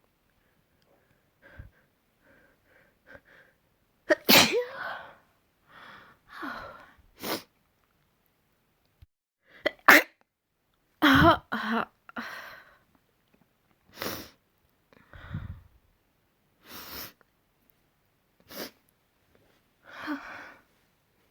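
A person sneezing over and over, about a dozen sneezes one every second or two, after a few faint sniffs and breaths in the first seconds.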